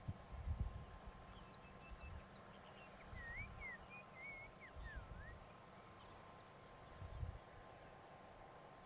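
Faint bush ambience: a bird gives a run of short whistled notes sliding up and down near the middle, over a steady thin insect drone, with a few brief low rumbles.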